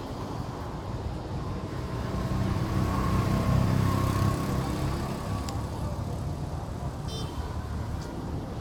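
Street traffic: a steady low rumble of passing vehicles that swells as one goes by about three to four seconds in, then eases.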